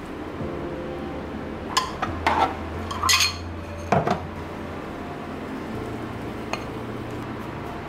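Plastic rice paddle turning over cooked rice in an electric rice cooker's inner pot: several short knocks and scrapes against the pot, the loudest about three and four seconds in, then a light tick as rice is scooped into a ceramic bowl. A steady low hum runs underneath.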